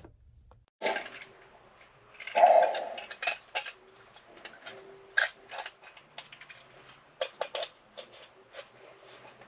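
Hand tools and a brass solenoid valve being handled: scattered clicks and light metallic clinks, with a louder rustle about two and a half seconds in.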